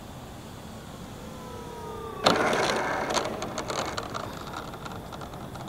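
A radio-controlled Super Decathlon's electric motor and propeller whine falls in pitch as the throttle comes back. About two seconds in, the wheels touch down on the asphalt runway with a sudden clatter, and the plane rolls out with a rattling that fades.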